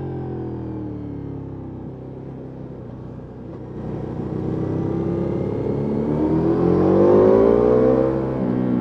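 Ducati Multistrada V4S Rally's V4 engine through an Akrapovic exhaust, heard onboard: revs falling off for about three seconds, then climbing hard for about four seconds and easing briefly near the end.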